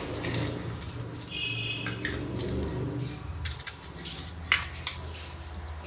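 Light clinks and taps of kitchen utensils against an aluminium pressure cooker as salt is added, a few scattered knocks with one short ringing clink, over a low steady hum.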